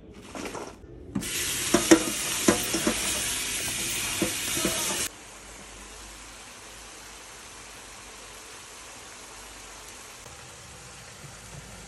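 Food frying in a wok, stirred with a wooden spatula: a loud sizzle with scrapes and knocks for about four seconds, which cuts off suddenly to a quieter, steady sizzle.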